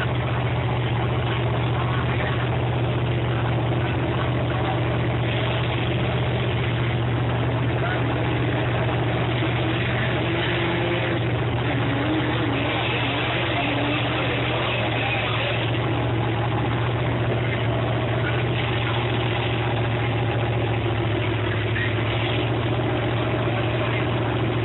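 A vehicle engine idling at a steady pitch, with no revs or changes, under faint background voices.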